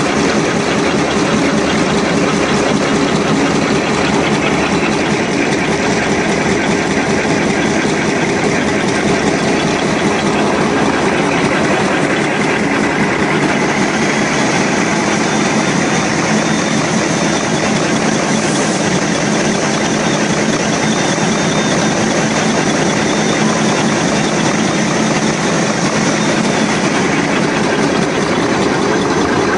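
Automatic wet-wipe folding and packing machine running steadily: a loud, even mechanical din with a constant low hum and a faint high whine.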